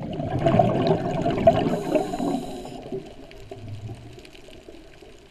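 Scuba diver exhaling through the regulator: a gush of bubbles lasting about three seconds that then fades to a low underwater hiss.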